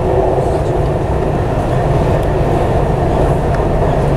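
Dubai Metro train running along its elevated track, heard from inside the carriage: a steady, even low running noise of wheels and motors.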